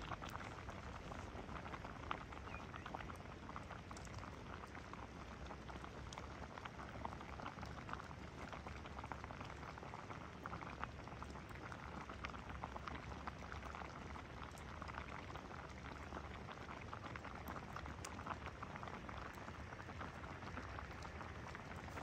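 Large pot of water at a rolling boil over a wood fire: a steady bubbling with many small pops.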